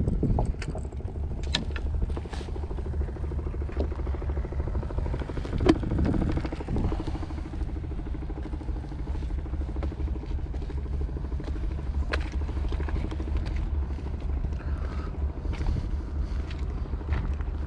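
Steady low rumble with scattered knocks, the sharpest about six seconds in, from the action camera being handled and moved.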